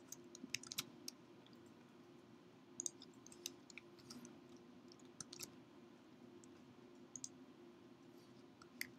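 Scattered faint clicks of a computer mouse and keyboard, a few at a time, over a faint steady hum.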